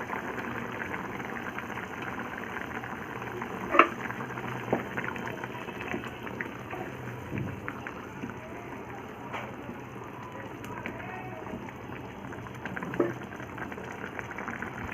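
Thickened chicken curry bubbling steadily in a pot on the stove, with a few sharp clinks along the way.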